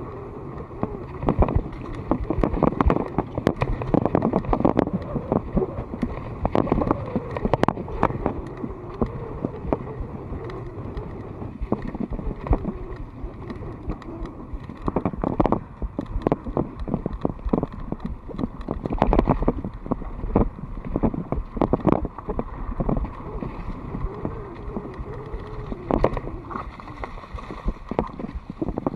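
Mountain bike ridden fast over a dirt forest trail, heard from a rider-mounted camera: steady wind rush on the microphone and tyres on dirt and leaves, with frequent knocks and rattles from the bike as it hits bumps.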